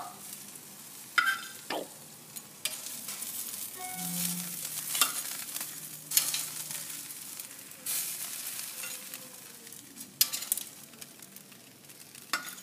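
Metal tongs clicking and scraping against a hot grill grate as breaded chicken thighs are picked up and moved to a plate, a series of sharp clicks at irregular intervals. A light sizzling hiss from the hot grate and chicken sounds between them.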